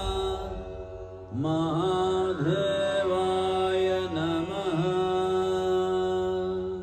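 Devotional chant sung in long held notes with small ornamental bends over a steady drone. It pauses briefly about a second in, comes back with an upward slide, and fades out at the end.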